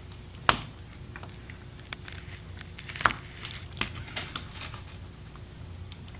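Small sharp clicks and taps of a plastic spudger and a small tool picking at a tiny speaker-cable connector on a laptop motherboard, with light handling rustle. The two loudest clicks come about half a second in and about three seconds in.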